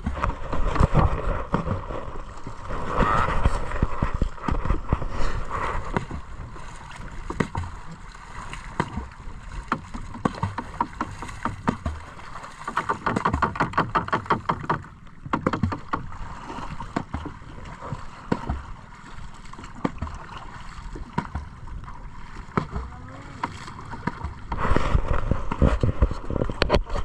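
Water splashing and slapping against a small outrigger canoe as it is paddled along at sea, in irregular quick splashes that are louder near the start and near the end.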